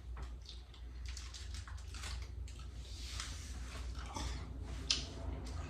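Quiet, irregular clicks and crackles of someone eating a chocolate-covered marshmallow cookie, with mouth sounds and light handling of the snack, over a low steady hum.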